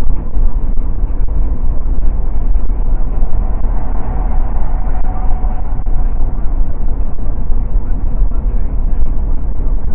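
Steady wind and road rumble of a car driving at highway speed, heavy in the low end.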